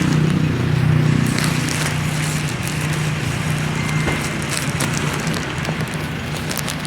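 An engine running steadily nearby, a low even drone that fades a little toward the end, with scattered light clicks and taps over it.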